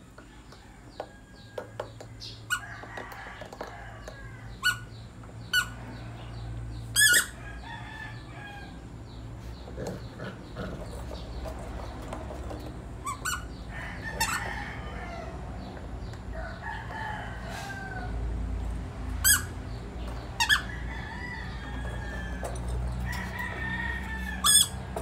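A rubber ball squeaking in short, sharp bursts at irregular intervals as a Chow Chow puppy chews and paws it. Roosters crow in the background now and then, mostly in the middle and near the end.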